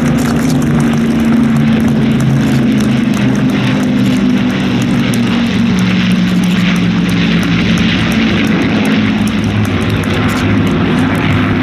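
A formation of Second World War propeller aircraft flying past: an Avro Lancaster with its four Rolls-Royce Merlin piston engines, a Douglas Dakota, and Hurricane and Spitfire fighters. Their engines drone together in a loud, steady, deep hum whose pitch sinks slowly as they pass.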